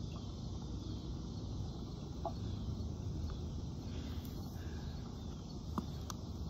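Steady low outdoor background rumble, with a few faint short clicks and taps in the second half.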